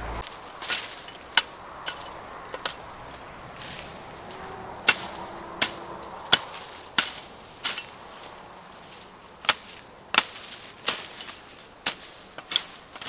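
Sharp cracks of woody shrub branches being broken off, about one every second with a short pause in the middle, with some leaf rustle between them.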